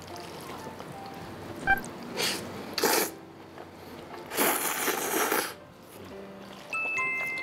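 A person slurping curry noodles: three sucking slurps, two short and then one about a second long, with a sharp click just before the first.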